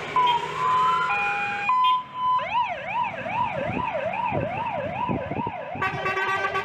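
Fire engine siren: a few short steady tones, then a fast warble sweeping up and down about three times a second. Near the end a steady horn blast sounds over the warble.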